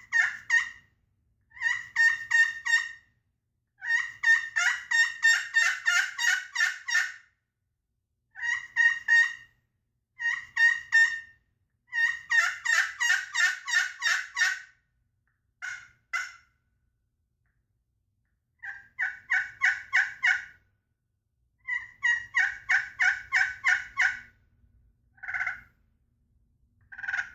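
Friction pot turkey call played with a wooden striker, giving runs of short, sharp hen-turkey notes, about four a second, broken by short pauses.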